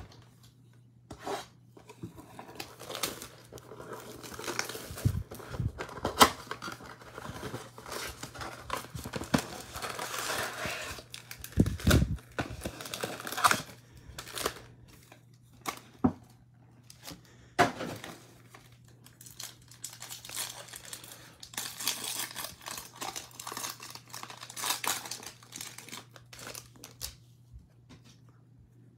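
A trading-card box being opened and its foil packs ripped open: repeated tearing and crinkling of wrappers with light cardboard knocks and clicks, busiest in two stretches in the middle and later part.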